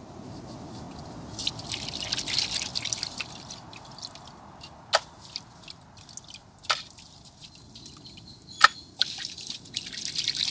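Water splashing and dripping as cleaned crab pieces are washed by hand in a large aluminium pot, with a few sharp clicks in between.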